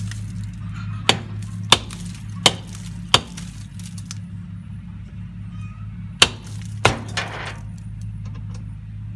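Sharp metal-on-metal strikes on a stuck wheel bolt, hammered with an improvised tool in place of a hammer: four blows about two-thirds of a second apart, a pause, then two more about six seconds in.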